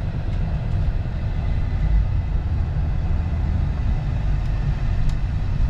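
Steady low rumble of a truck on the move, road and engine noise heard from inside the cab.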